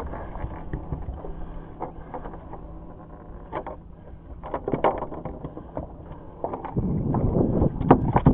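Scattered clicks and knocks of handling on a small fishing boat's deck over a faint low steady hum; about seven seconds in a louder low rumbling rustle starts.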